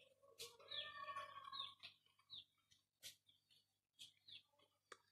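Faint short bird chirps, repeated at irregular intervals, with a few light clicks.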